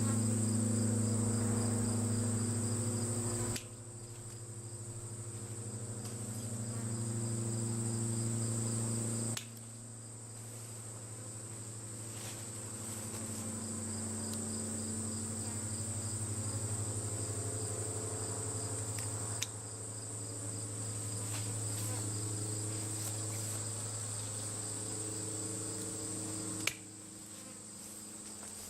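Honeybee swarm humming close by: a steady, many-pitched low drone, with a constant high insect trill above it. The sound changes abruptly in level about four times.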